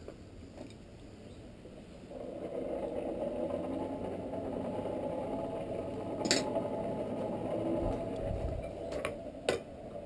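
Coal forge's air blower running steadily from about two seconds in, blowing the fire up towards a forge-welding heat, with a couple of sharp metal clinks.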